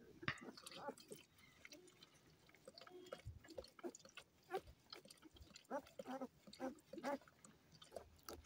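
Faint suckling and licking from a German Shepherd mother and her ten-day-old puppies nursing, with a few short squeaks in the second half.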